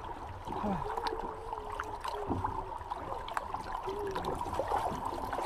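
River water sloshing and trickling around a swamped canoe as it is pushed and pulled in the current, with a few small knocks of gear against the hull.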